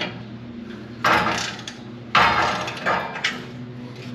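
Hand wrench tightening the hitch bolt of a scooter carrier: short clicking, scraping strokes about a second apart, the second one the loudest.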